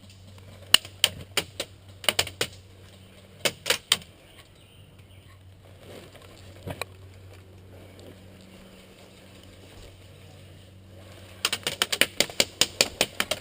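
Airsoft electric rifle (VFC SCAR-H) firing single shots in short strings of three or four. Near the end comes a quicker run of about a dozen shots.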